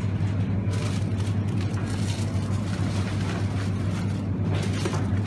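Wire shopping cart rolling across a hard terrazzo floor: a steady low rumble from the wheels, with clicks and rattles from the basket and its load.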